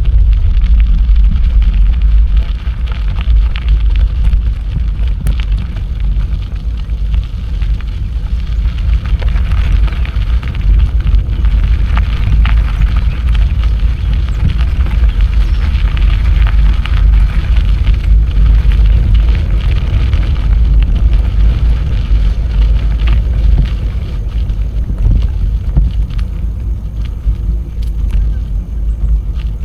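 Wind buffeting the microphone of a camera riding on a moving bicycle, a steady low rumble, with the hiss of the tyres rolling over the path.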